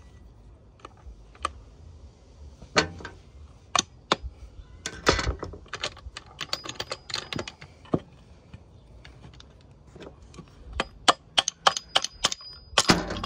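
Metal clicking and clattering of gearbox shafts and gears being worked into the crankcase half of a Suzuki RM85 two-stroke engine during a rebuild: irregular clusters of sharp clicks, busiest near the end.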